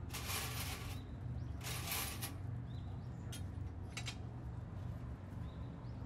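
Loose metal skewer pieces rattling and clinking in a stainless-steel tray as they are rummaged and picked out, in two clusters in the first two seconds, then a couple of single clicks. A steady low hum runs underneath.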